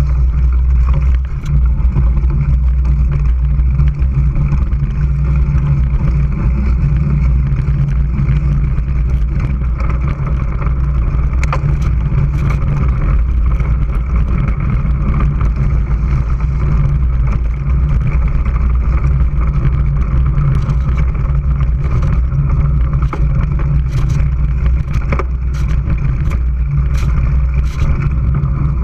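Mountain bike riding over a dirt trail, heard through a camera mounted on the bike: a loud, steady rumble of wind and tyre vibration on the microphone. Sharp clicks and knocks from the bike jolting over the ground come more often in the second half.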